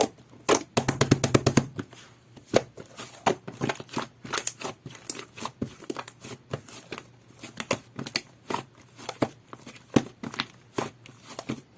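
Jelly-textured slime being squeezed and worked in the hands, giving a string of wet clicks and pops, with a quick run of clicks about a second in.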